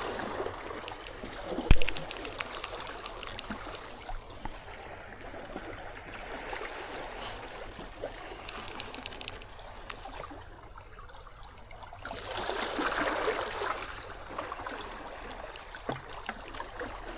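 Running water, a steady rush that swells louder for a couple of seconds about twelve seconds in, with one sharp knock about two seconds in.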